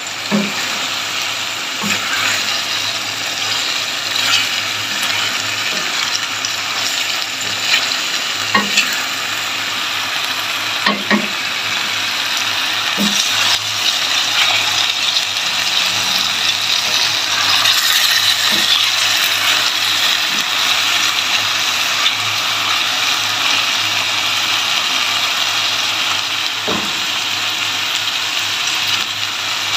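Mutton curry sizzling steadily in a steel pot while it is stirred with a wooden spatula, with a few short knocks of the spatula against the pot. The curry is in its final cooking-down stage, its liquid drying off so the ghee separates.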